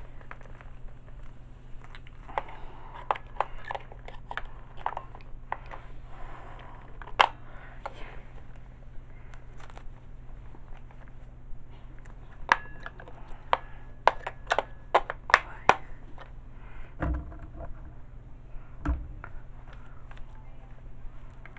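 AA batteries being taken out of and pressed into the toy's plastic battery compartment: two runs of sharp clicks against the springs and plastic, then two dull thumps near the end.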